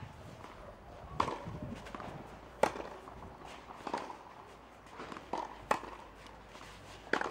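Tennis balls struck by rackets in a baseline rally on a clay court: five sharp pops, about one every second and a half, the loudest near the middle, with the ball's bounces and footsteps on the clay between them.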